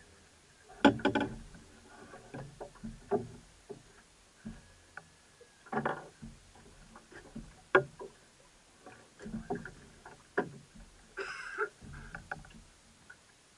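Irregular knocks, clicks and clunks of gear handled aboard a Fastnet 15 small open boat, the loudest a quick cluster about a second in, with a brief rushing hiss near the end.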